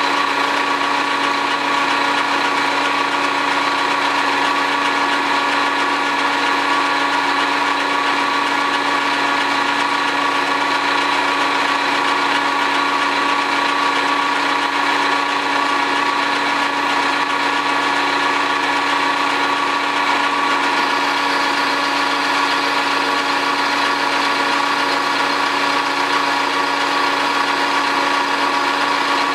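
South Bend metal lathe running steadily, its chuck spinning as a cutting tool turns down the shank of a drill bit: a constant mechanical whine made of several steady tones.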